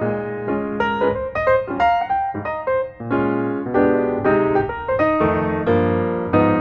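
Background piano music: a melody over a steady bass line.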